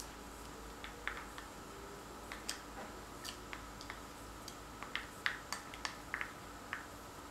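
Irregular light clicks and taps of a wooden stir stick and small paint cups being handled while paint is mixed, thickest and loudest about five seconds in.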